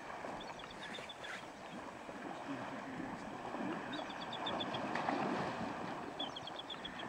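Steady rush of creek water. A small bird gives a short, rapid trill of high notes three times over it.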